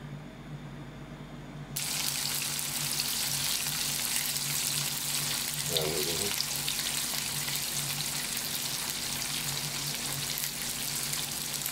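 Salmon steaks sizzling in hot olive oil in a frying pan: a loud, steady frying hiss that starts abruptly about two seconds in. A low steady hum runs underneath.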